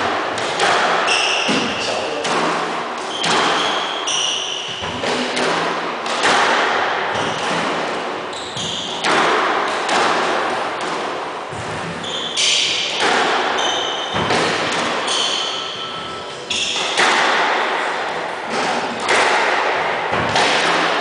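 Squash rally: the ball is struck by rackets and smacks off the court walls roughly once a second, each hit ringing in the enclosed court. Shoes squeak briefly on the hardwood floor between shots.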